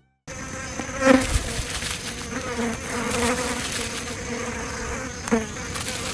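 Flies buzzing steadily, with louder swells about a second in and again near the end.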